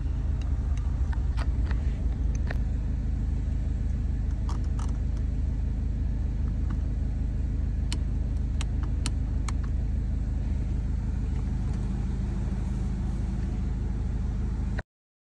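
BMW F10's engine idling, a steady low hum heard from inside the cabin. Over it comes a scattering of sharp clicks from the iDrive controller knob being pressed and turned, most of them in the first ten seconds.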